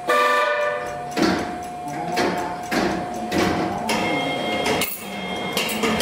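Sawmill log carriage machinery turning a large log. There are regular clunks about twice a second over a steady whine, and a brief squeal in the first second.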